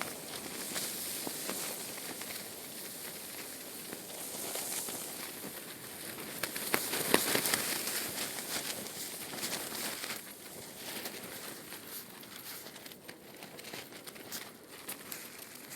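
Rain from a storm pattering steadily, a crackling hiss with no low rumble, heavier for a few seconds around the middle.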